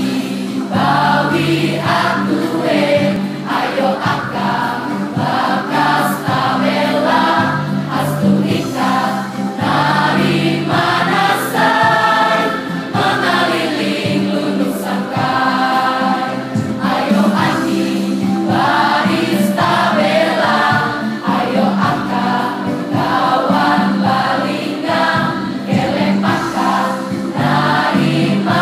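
School choir of mostly teenage girls singing a song together in parts, over a sustained instrumental accompaniment.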